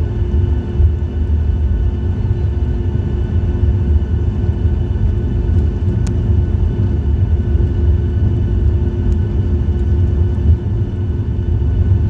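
Cabin noise of a Boeing 737 taxiing on the ground: a steady low rumble with the jet engines' even hum at idle, heard through the fuselage. A faint click comes about six seconds in.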